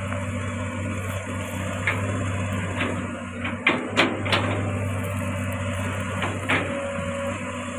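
Komatsu PC200 long-arm excavator's diesel engine running steadily while it digs. Sharp knocks and clanks come from the bucket and arm working the ground, most of them bunched around the middle and one more near the end.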